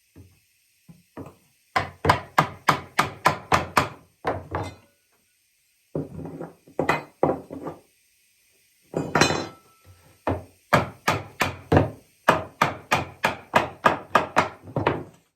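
Hammer blows driving the sourwood chair's dry rungs into its green back and front posts, in three runs of steady strikes about three a second. The first run comes about two seconds in, a short run follows, and a longer one begins near the middle.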